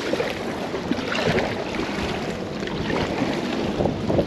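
Gusty wind buffeting the microphone, with choppy river water splashing against a sailing canoe's hull and outrigger floats.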